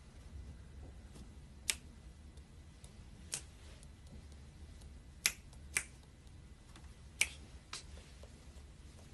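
About six sharp, short clicks at irregular intervals of one to two seconds, over a quiet room background.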